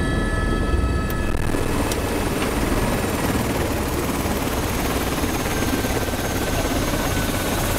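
Helicopter engine and rotor heard from inside the cabin. A steady high whine sounds for the first second or so, then gives way about a second and a half in to an even rushing noise that holds to the end.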